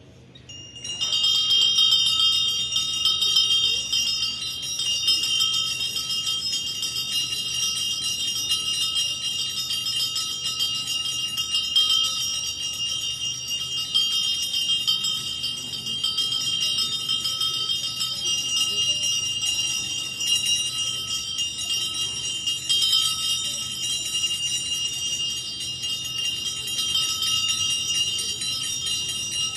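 Altar bells shaken continuously, a steady bright ringing that starts about a second in, marking the Eucharistic blessing given with the monstrance at Benediction.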